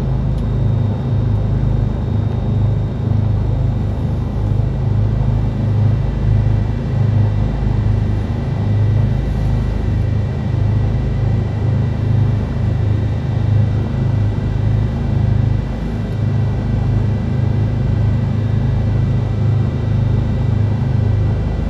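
Cessna 310Q's twin piston engines running steadily at low power, a constant low drone with a faint steady high whine over it.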